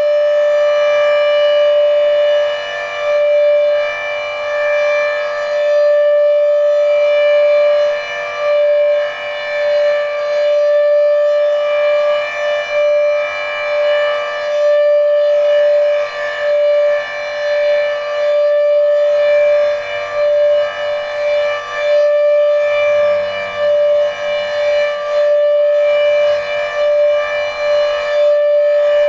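Federal Signal Thunderbeam RSH-10B outdoor warning siren, whose reflector is faulty, sounding its steady Alert signal: one held pitch that swells and dips in loudness every few seconds as the rotating siren sweeps past.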